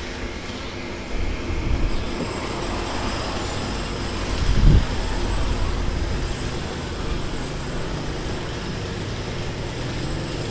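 Steady low rumble of vehicle engine noise that swells about a second in, with a short low thump nearly five seconds in.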